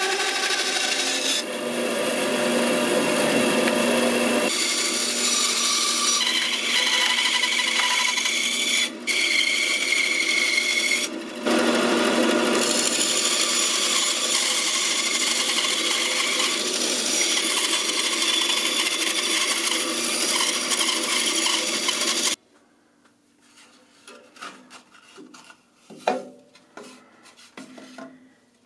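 Bandsaw cutting through a thick wooden block, its noise changing in pitch and tone as the curved cut is fed through, with two brief dips. It stops abruptly about 22 seconds in, followed by a few light knocks of wood pieces being handled.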